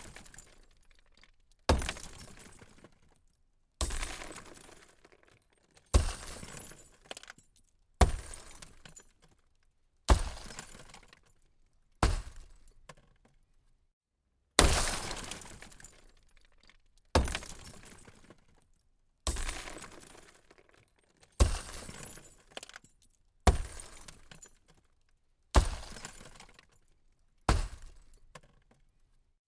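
Car window glass being smashed, over and over, about every two seconds: each time a sharp crash of shattering glass that fades away over a second or so, about thirteen times in all.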